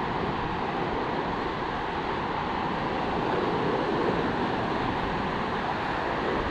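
Steady rush of ocean surf mixed with wind, an even noise with no distinct events.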